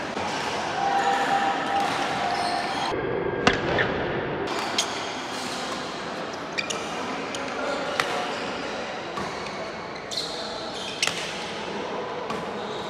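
Badminton rally in a large echoing sports hall: a string of sharp racket strikes on the shuttlecock, about one every second or two, with shoes squeaking on the court floor.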